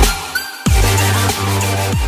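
Electronic outro music with a heavy bass line and falling pitch sweeps; the bass drops out briefly at the start and comes back in about two thirds of a second in.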